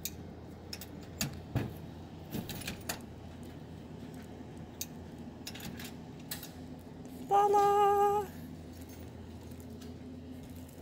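Keys jangling and the clicks of a door lock and lever handle as a hotel room door is unlocked and opened, mostly in the first three seconds. About seven seconds in comes a louder, high, held tone lasting about a second.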